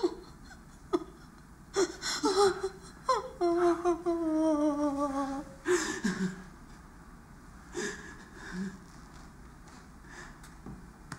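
A woman sobbing: short gasping breaths, then a long wavering wail that slowly falls in pitch, followed by a sharp inhale and quieter sobs.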